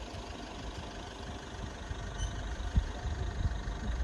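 A vehicle's engine and road noise: a steady low rumble with a few soft thumps.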